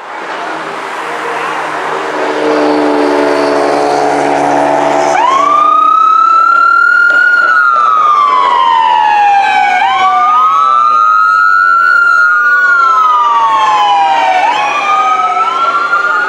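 Emergency vehicle sirens wailing. A vehicle engine runs for the first few seconds. About five seconds in, an electronic siren starts, rising quickly and sliding slowly down in long cycles, with a second siren sounding a beat behind it.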